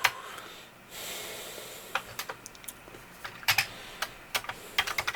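Keys being typed on a Commodore C16 home computer's keyboard: irregular single clicks, with a quicker run of keystrokes near the end. A short breath out about a second in.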